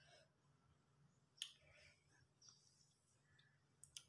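Near silence: faint room tone with a low hum and two brief, faint clicks, one about a second and a half in and one near the end.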